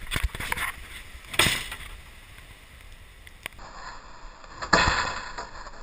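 Rushing wind on an action camera's microphone, with two loud whooshes, about a second and a half in and again near five seconds.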